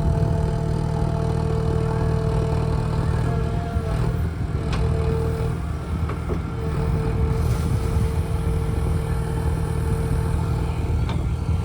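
JCB backhoe loader's diesel engine running steadily under load, with a steady whine that briefly dips a few times. Two sharp metallic clanks come about halfway through and near the end.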